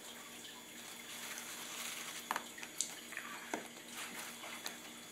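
Soaked corrugated cardboard being handled, pulled apart and laid into a plastic tub: faint wet rustling, with a few small clicks and taps in the middle.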